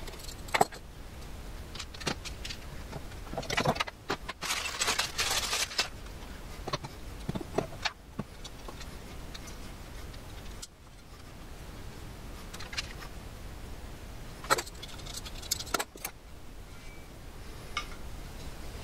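Small metal hand tools and parts clinking and rattling as they are picked up and handled, in scattered sharp clicks, with a longer rattle about four to six seconds in.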